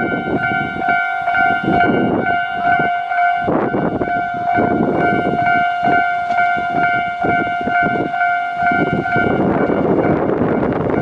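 Ohmi Railway electric train set 801F passing while slowing, its wheels clacking over rail joints under a steady whine that stops about nine seconds in.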